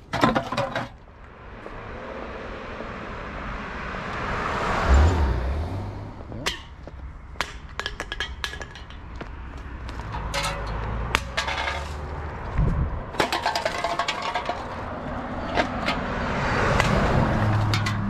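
Empty aluminum beverage cans clinking and rattling against each other as they are picked up and dropped into a bucket, in many quick sharp clinks. A car passes on the road about five seconds in, and another approaches near the end.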